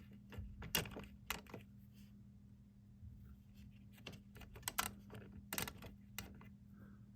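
Irregular light clicks and taps of a small diecast farm toy model being handled, its movable ladder being moved, over a faint steady low hum.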